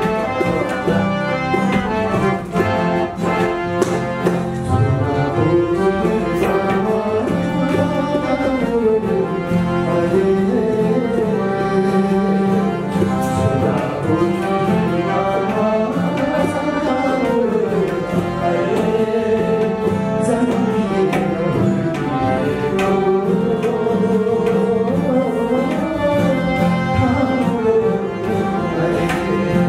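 Harmonium and tabla accompanying a man singing a Nepali song, the voice sliding between notes over the held harmonium chords and the tabla's steady beat.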